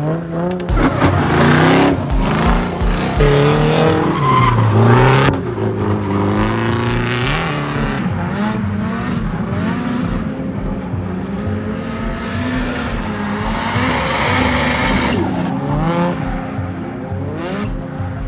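Drift cars' engines revving up and down repeatedly, with tires squealing as the cars slide. The loudest stretch is in the first five seconds, and another swell of tire squeal comes about fourteen seconds in.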